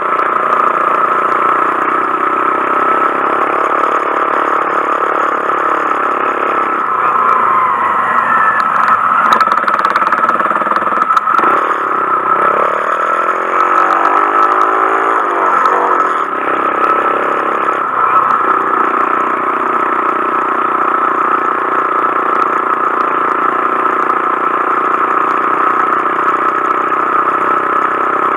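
Honda Monkey 125's single-cylinder four-stroke engine running on the move. Its pitch rises as it accelerates about halfway through, then drops back and holds steady.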